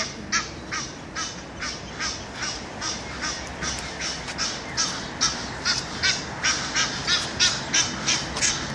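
Bird calling in a long, even series of short harsh calls, about two to three a second, coming a little faster near the end.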